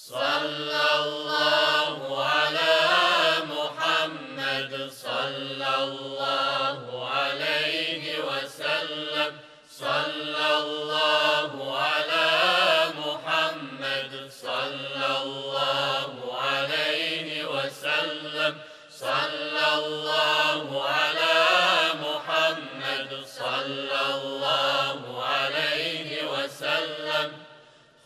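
A male vocal group sings an Islamic devotional hymn a cappella, several voices chanting long melodic phrases over a steady low held note, with short pauses between phrases.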